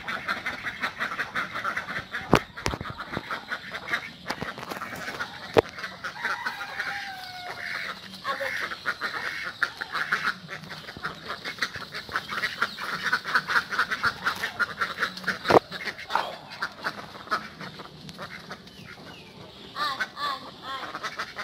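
A small flock of domestic ducks quacking in rapid, continuous chatter as they walk along, with a few sharp clicks in between.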